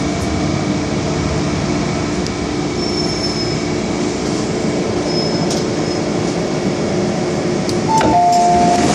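MTR Island Line M-Train running and pulling into a station: a steady rumble with a low motor hum. About eight seconds in, two short higher tones sound one after the other, the second lower, and the sound grows a little louder.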